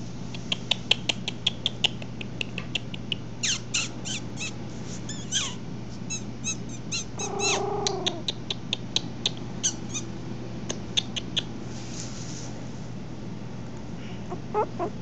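Young Maltese puppies squeaking and whimpering: many short, high-pitched squeaks in quick succession for the first eleven seconds or so, a longer whine about seven and a half seconds in, and a few more squeaks near the end.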